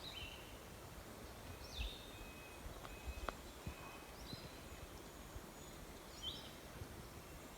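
Faint bird song: short high chirping notes repeated about every two seconds over quiet open-air background, with a few soft clicks.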